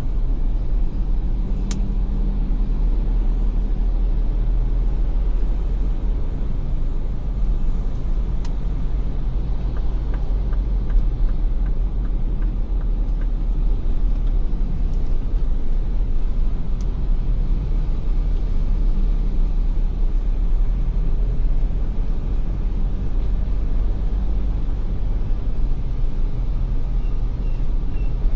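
Ford Everest SUV driving: a steady low rumble of engine and road noise, with a short run of light, evenly spaced ticks about ten seconds in.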